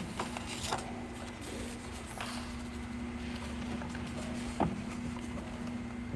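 Quiet room tone in a church sanctuary: a faint steady hum with scattered small clicks and handling noises, and one sharper knock about four and a half seconds in.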